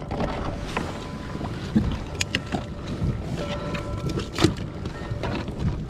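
Wind buffeting the microphone over water against a kayak, with several short knocks and clicks scattered through as crabs and gear are handled on board.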